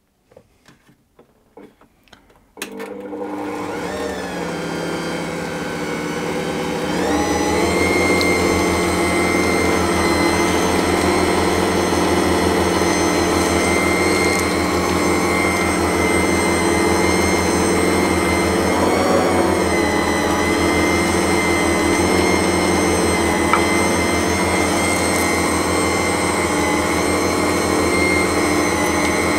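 Ankarsrum stand mixer switched on after a few faint clicks, its motor speeding up about seven seconds in and then running steadily as it mixes bread dough to a shaggy dough.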